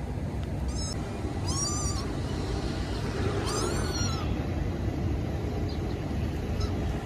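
Cat meowing, three meows in the first half, each rising then falling in pitch, the first one short. A steady low rumble runs underneath.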